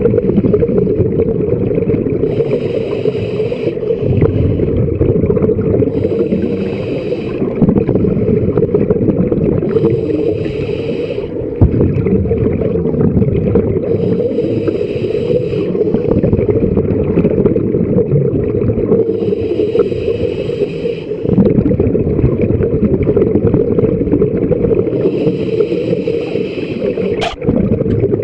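Scuba diver breathing through a regulator underwater: a rush of exhaled bubbles every four to five seconds, about six times, over a steady low rumble. A single sharp click near the end.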